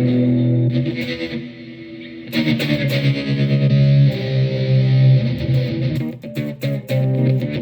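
Electric guitar played through a Donner Arena 2000 multi-effects processor preset, with sustained notes and chords. The playing thins out about a second and a half in, then comes back fuller.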